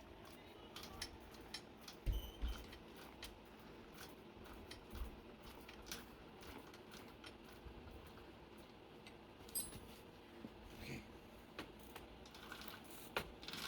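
Motorized bicycle drive chain and sprockets turned slowly by hand with the engine off, giving faint, irregular light clicks and ticks, with a dull knock about two seconds in.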